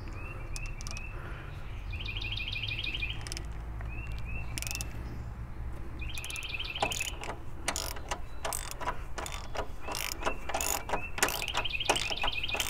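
Hand socket ratchet clicking in quick runs from about halfway through, as it drives a thread-cutting bolt to cut threads into a bolt hole at the front of a Jeep Wrangler JK. A bird sings short repeated trills in the first half and again near the end.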